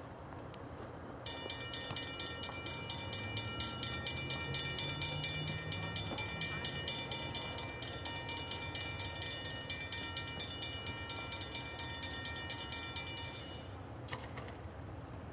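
Railroad grade-crossing bell ringing in rapid, even strokes, starting suddenly about a second in and stopping near the end: the crossing signals activating for an approaching train.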